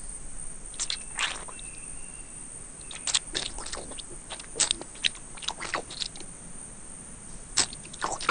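Crunching and cracking of a nut being bitten and chewed, in short sharp crackles: a couple about a second in, a quick run from about three to six seconds in, and a few more near the end. A faint chirp sounds about two seconds in.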